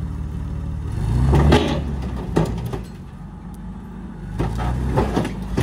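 Forklift engine revving under load as it lifts a truck cab. It swells about a second in, eases off, then rises again near the end, with a few sharp cracks from the cab as it breaks free.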